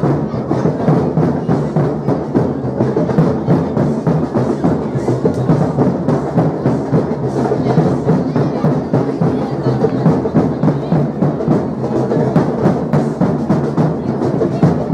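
Batucada drum group playing: many drums pounding out a dense, steady rhythm with a strong low end.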